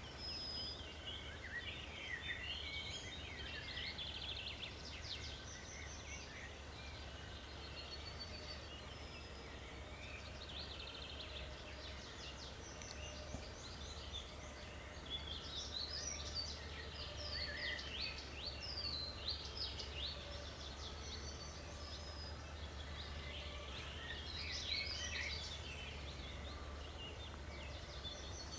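Small songbirds singing in the background, a steady mix of quick chirps, whistles and trills, over a constant low rumble.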